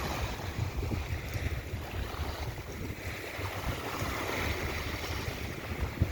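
Mediterranean surf washing onto the shore, a wave swelling and hissing a few seconds in, with wind buffeting the microphone in an irregular low rumble.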